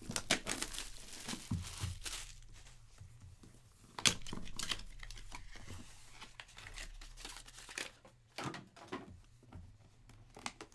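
Plastic shrink wrap being torn and crinkled off a sealed trading-card box, then the cardboard box handled and slid about, with a sharp snap about four seconds in.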